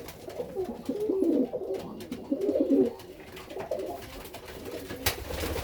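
Serbian Highflyer pigeons cooing in a small enclosure, in two main bouts of repeated coos, with a brief sharp knock about five seconds in.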